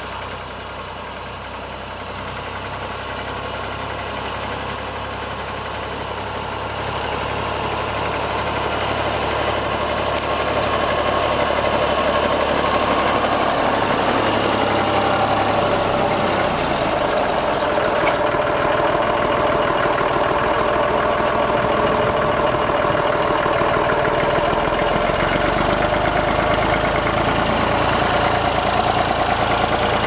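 Old Massey Ferguson tractor engine running steadily as it pulls a reaper-binder through wheat, growing louder over the first ten seconds or so as it comes close, then holding level.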